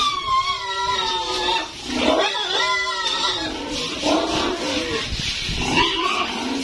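Piglets squealing: a string of drawn-out, wavering squeals, one after another.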